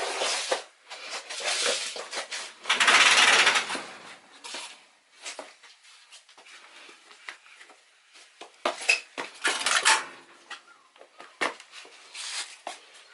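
Kitchen clatter of dishes and utensils: scattered clicks and knocks, with a louder rushing noise for about a second, about three seconds in.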